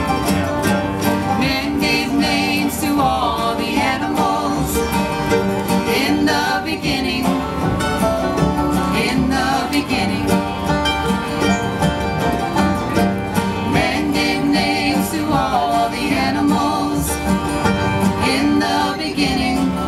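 A bluegrass band playing live: banjo, mandolin, acoustic guitars and upright bass together at a steady, lively pace.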